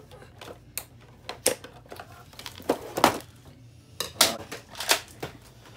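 Scissors snipping the ties that hold a Nerf blaster in its box, with the plastic and cardboard packaging clattering: irregular sharp clicks and snaps, loudest about three and four seconds in.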